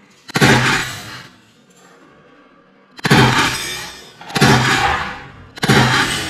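Four loud, sudden bangs, each dying away over about a second with a long ring: one just after the start, then three more about a second and a half apart from about three seconds in.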